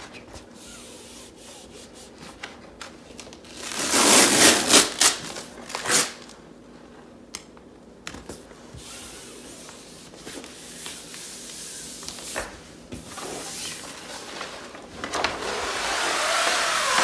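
Hands rubbing and smoothing peel-and-stick wallpaper against a wall: a soft, papery rubbing hiss, with louder rustling of the paper sheet around four to six seconds in.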